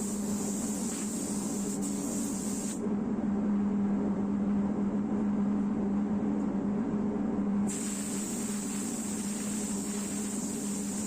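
Compressed-air spray gun hissing steadily while spraying primer, over a constant low mechanical hum. For a few seconds in the middle the hiss goes duller, then returns.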